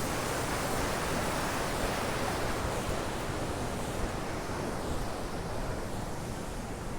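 Steady rush of fast-flowing mountain water, an even hiss-like roar that eases a little in the second half.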